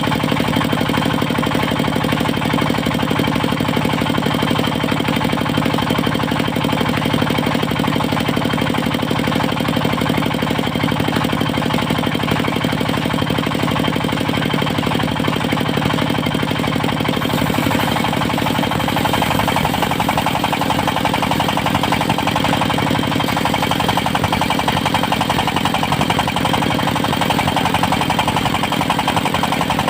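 Diesel engine driving a mobile circular sawmill, running steadily with a fast knocking beat. A bit over halfway through the sound turns brighter and hissier.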